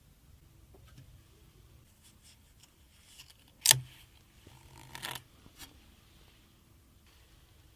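Hardware being handled during a PC build: a single sharp click a little before halfway, then a brief scraping rustle about a second later, with a few faint ticks.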